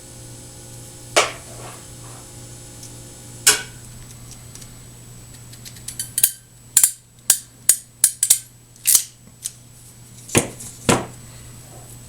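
Sharp plastic clicks and clacks of an HDMI connector's wire holder being worked in a field-termination tool while its ribbon cable is pre-terminated and trimmed. There are single clicks about a second and three and a half seconds in, then a quick run of about ten clicks, then two more near the end.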